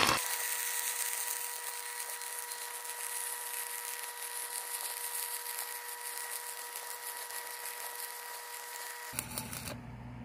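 Stick-welding arc burning on steel pipe during a downhill cap pass: a steady crackling hiss with a steady hum underneath. The arc is struck as it begins and broken abruptly about nine seconds in.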